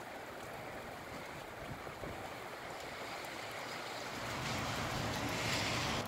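Strong gusty wind with rain, a steady rushing noise that swells into a louder gust about four seconds in and drops off abruptly at the end.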